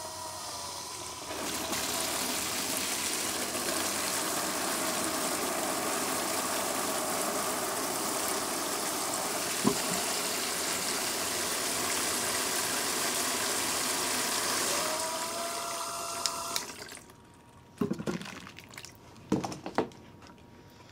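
Ooklee battery-powered portable shower pump running with a faint whine, and water spraying from its handheld shower head into a plastic tub; the spray gets louder about a second in. Near the end the pump's whine rises slightly and the flow stops suddenly as the bucket is drawn down to about half an inch of water, followed by a few light knocks.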